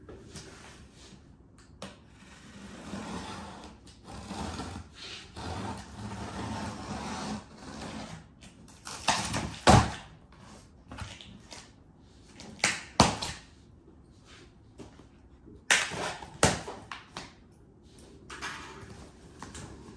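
Cardboard shipping box being opened by hand: scraping and tearing as the packing tape along the lid is cut open, then the long flaps pulled back and handled, with several sharp knocks of cardboard about halfway through and again a few seconds later.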